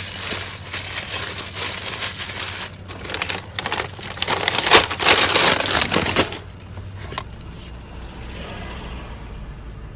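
Paper burger wrapper and paper takeout bag being handled: crinkling and rustling with sharp crackles, loudest about five seconds in, stopping after about six seconds.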